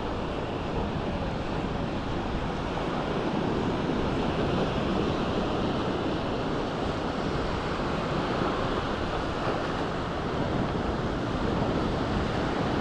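Sea waves washing onto the beach, a steady rushing noise, with wind on the microphone.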